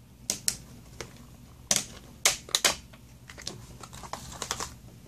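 Irregular sharp clicks and taps of plastic and paper planner pieces, a page-flag sheet among them, being handled and set down on a hard tabletop.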